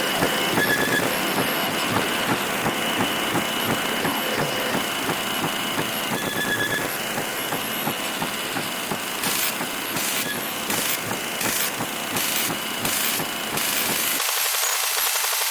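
Static and interference from a television with a poor signal: a steady crackling hiss with a faint high whine. In the second half the hiss pulses about seven times at an even beat, and near the end the low rumble drops out.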